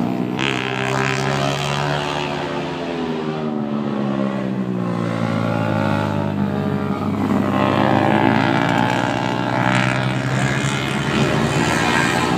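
Motorcycle engines passing one after another through a hairpin bend, their engine notes falling and rising again as the riders slow for the corner and accelerate out of it.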